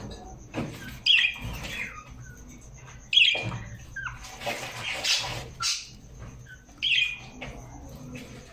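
Parrot squawking: three loud, harsh calls spread across a few seconds, with softer chattering between them.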